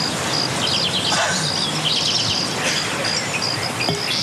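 Outdoor nature ambience: insects chirping in short repeated pulses, with quick bird chirps, over a steady background hiss.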